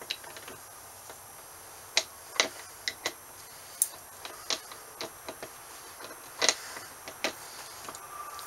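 A dozen or so sharp metal clicks and clinks, scattered irregularly, as steel gears and a shaft from a Peerless MST transaxle are handled and fitted together.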